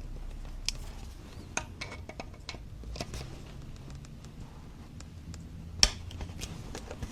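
Scattered light metallic clicks and taps as rifle parts and tools are handled, with one sharper knock about six seconds in.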